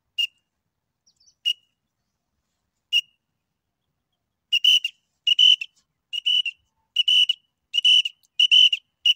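Small plastic toy whistle blown as a bird-hunting call for partridges: three single short, high chirps a second or so apart, then from about halfway a steady run of short chirps, roughly one and a half a second.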